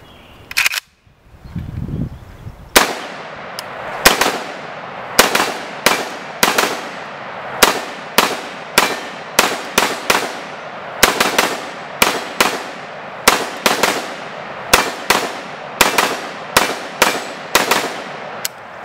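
Rapid shots from a DDI stamped AK-47 underfolder in 7.62x39, starting about three seconds in and going on at roughly two shots a second with an uneven rhythm, a few in quick pairs, each shot followed by a short echo.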